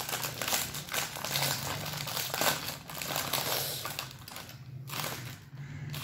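Plastic bag of Tikit corn chips crinkling as it is handled and pulled open: a run of irregular crackly rustles with a couple of brief lulls near the end.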